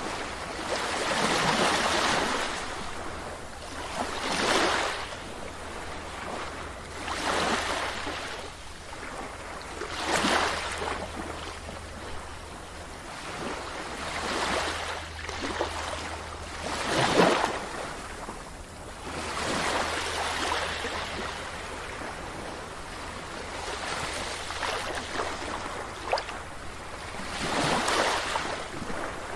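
Sea waves breaking and washing up a beach, one surge after another every two to four seconds.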